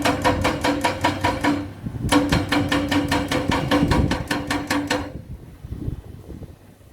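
Excavator-mounted hydraulic rock breaker hammering in quick, even blows, about eight a second, over the running engine. It stops for half a second after about a second and a half, runs again for three seconds, then stops, leaving the engine and wind.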